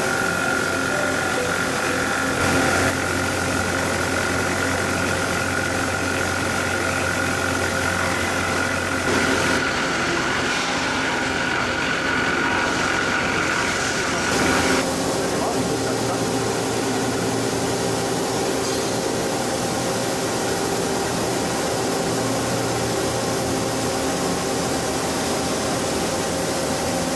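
Vertical machining center milling a 45° bevel into a 12 mm SS400 mild-steel disc with a 50 mm cutter at 1000 rpm: a steady machine hum with continuous cutting noise and a high whine. About halfway through, the whine drops out and the sound turns lower.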